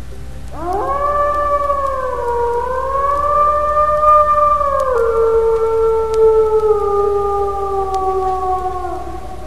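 Grey wolf howling: one long howl that swoops up steeply at the start and wavers, then drops in pitch about halfway through and slides slowly lower before it ends near the end.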